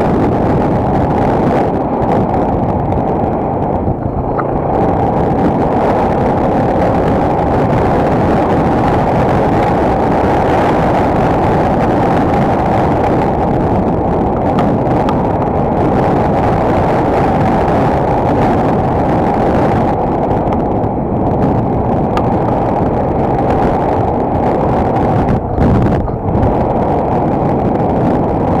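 Single-cylinder four-stroke enduro motorcycle engine running steadily as the bike is ridden, with slight dips in level about 4 seconds in and near the end.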